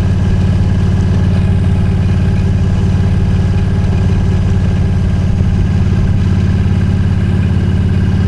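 Yamaha V-Star 1300's V-twin engine running steadily as the motorcycle cruises along a road.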